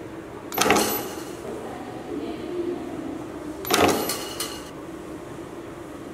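EW-09 terminal crimping machine crimping a terminal onto a wire twice, about three seconds apart; each cycle is a short, sharp mechanical stroke over a steady background hum.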